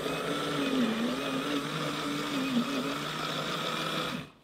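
Small battery motor of a handheld drink mixer running, spinning water in its lidded cup. It makes a steady whirr whose pitch wavers slightly, and it cuts off suddenly near the end.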